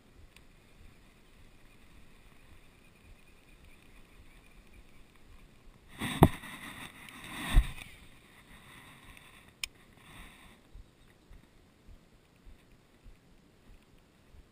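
Handling noise close to the camera: a burst of rustling with two sharp knocks about a second and a half apart, then a single click a couple of seconds later.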